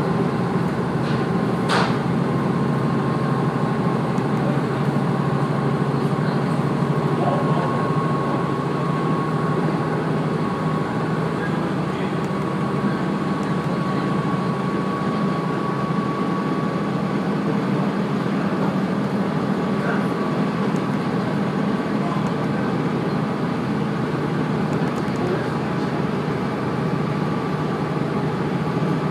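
A train running steadily along the track, heard from on board: a continuous rumble and hum with a thin steady whine, and a single sharp click about two seconds in.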